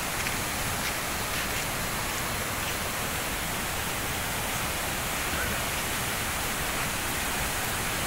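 A waterfall rushing steadily: an even, unbroken wash of falling-water noise.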